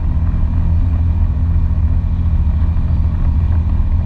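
ATV engine running steadily while driving along a dirt track, a loud, low, even drone.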